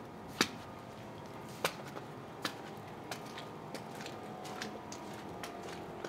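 Footsteps crunching in snow at a walking pace: a sharp crunch roughly every second or less, the loudest about half a second in, over a faint steady hum.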